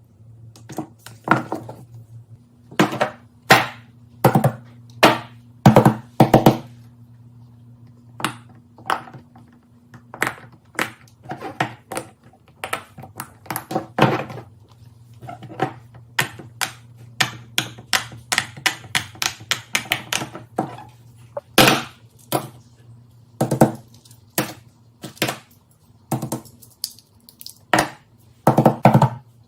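Irregular series of sharp taps, clicks and knocks, small objects being handled and set down on a hard surface, several a second in bursts with short pauses, over a faint steady low hum.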